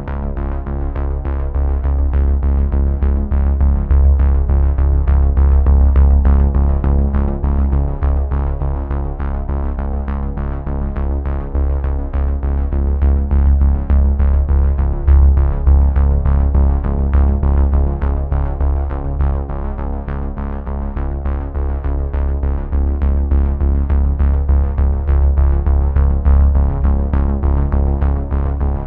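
Background music with a steady beat, heavy bass and held synthesizer-like chords.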